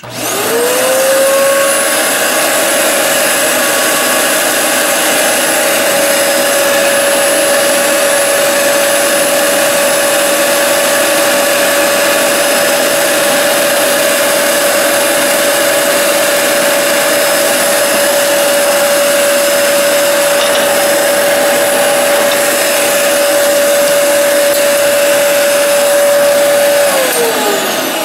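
Hoover Sprint Quickvac upright vacuum cleaner switched on, its motor whining up to speed within a second and running steadily, then switched off near the end, the whine falling as it spins down. The motor's pitch barely changes when the wand opening is covered by hand: no suction is reaching the wand, the sign of a plugged hose.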